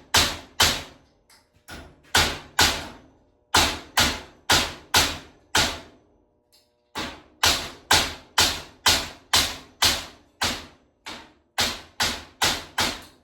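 Big hammer striking a steel cotter pin about two times a second, each blow a sharp metallic hit with a short ring. The blows pause for about a second near the middle, then carry on. The pin is being hammered into shape to make a homemade master-cylinder hone.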